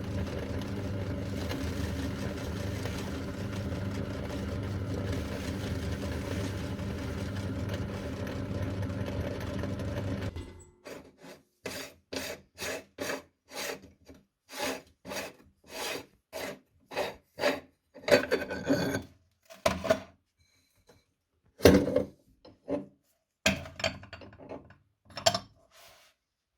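Meat grinder motor running steadily while grinding a cookie, cutting off suddenly about ten seconds in. Then comes a run of short separate scraping noises, about two a second, with a few louder knocks near the end.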